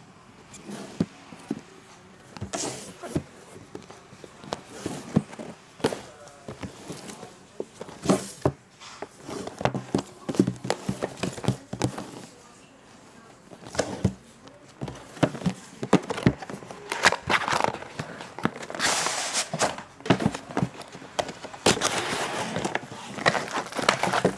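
Close-up handling of a cardboard graphics-card box: a string of taps, knocks and scrapes as it is turned over and opened. In the second half come longer stretches of rustling and crinkling as the inner tray and the plastic bubble-wrap bag around the card are handled.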